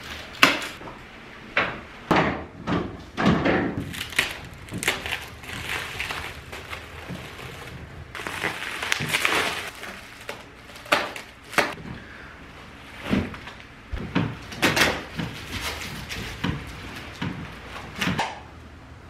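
Plastic wrap being pulled and torn off wooden furniture pieces, a string of irregular crinkling rustles, with sharp knocks as the wooden parts are handled and set down.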